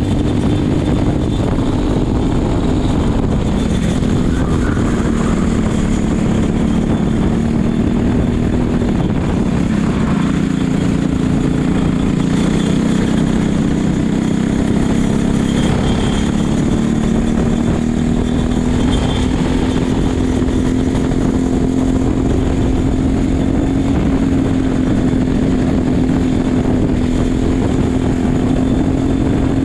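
Racing kart engine running at speed. Its pitch drops over several seconds as the kart slows into a curve, then climbs again as it accelerates out and holds steady near the end, with wind rushing across the helmet-mounted microphone.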